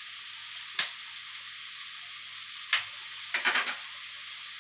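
Food sizzling in a frying pan with a steady hiss, and a cooking utensil knocking against the pan: once about a second in, once near three seconds, then a quick rattle of several knocks.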